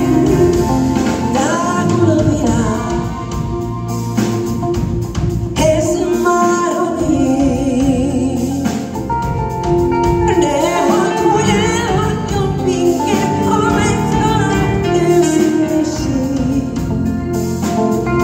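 A woman singing a pop song live into a microphone, backed by a live band with guitar, heard through the venue's sound system.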